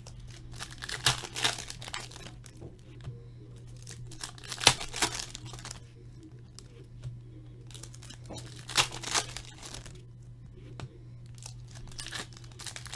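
Foil trading-card pack wrappers crinkling and tearing as packs are ripped open, in short bursts every few seconds, with softer rustling of cards being handled between them. A steady low hum runs underneath.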